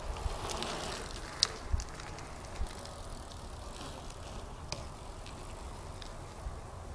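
2010 Eastern Growler BMX bike being ridden: its tyres rolling, with a swell of tyre noise in the first second and a handful of sharp clicks and knocks, the loudest about a second and a half in.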